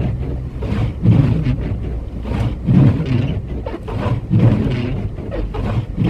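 Car driving through deep snow in a blizzard, heard from inside the cabin: a steady low rumble of engine, tyres and wind that swells in surges about every second and a half.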